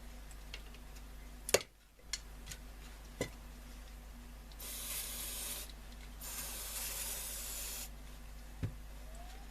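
Aerosol contact cleaner sprayed in two short hissing bursts, about five and seven seconds in, into a radio control knob that seems to have a problem. A sharp click comes just before two seconds in, with fainter clicks later, over a steady low hum.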